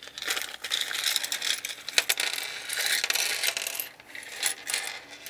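Small plastic Mega Bloks pieces clattering out of a crinkling plastic bag onto a tabletop: a dense run of clicks and rustle that thins to a few separate clicks near the end.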